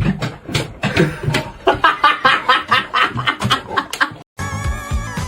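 A person laughing in quick, choppy bursts; after a short break near the end, upbeat background music starts.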